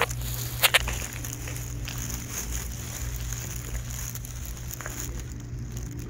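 Outdoor ambience in a snowstorm: a steady low hum under a hiss, with a few sharp clicks in the first second.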